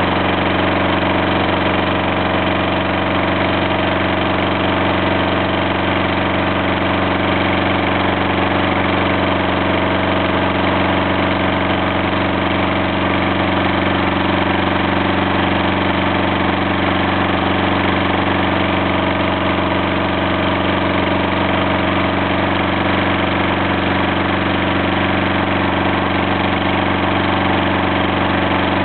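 Lawnmower engine running steadily at an unchanging speed, heard loud and close from right on the mower's front.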